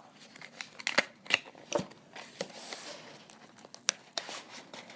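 Headphone packaging being opened by hand: a handful of sharp clicks and snaps, with a short stretch of rustling in the middle.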